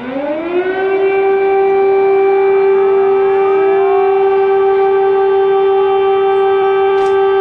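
Air-raid warning siren winding up to a steady, loud wail within the first second and holding that tone. A second siren climbs more slowly to the same pitch about two to four seconds in.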